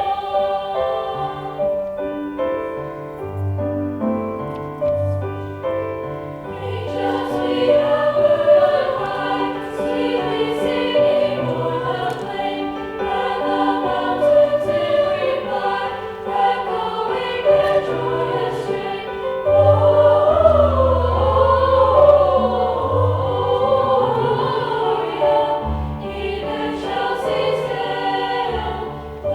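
A French carol sung as a duet by high school choir singers with vibrato, over sustained accompaniment notes. The sound grows fuller about seven seconds in.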